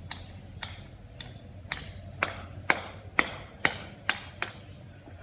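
A regular series of sharp, hard knocks, about two a second, growing louder toward the middle and fading away near the end.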